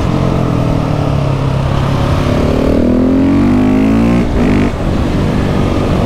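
KTM 690 SMC R's single-cylinder engine pulling under throttle: steady at first, then the revs climb for about two seconds, dip sharply just after the middle, and the engine runs on steadily.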